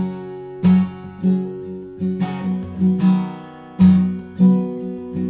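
Acoustic guitar strummed in a steady rhythm, sustained chords ringing between about six strokes.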